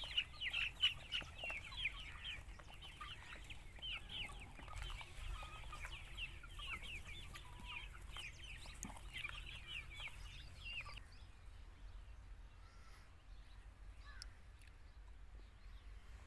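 A flock of young chickens clucking and cheeping: a dense, overlapping run of short high calls that stops about two-thirds of the way through.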